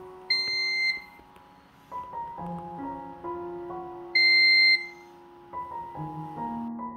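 Two loud electronic beeps about four seconds apart, each about half a second long and on one high pitch, from a Toyota Prius instrument cluster's warning buzzer sounding with a P-lock malfunction warning on its screen. Soft piano music plays underneath.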